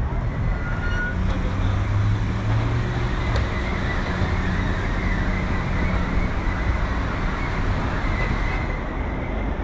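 Steady road traffic noise on a busy street, with one vehicle's low engine hum louder about two seconds in.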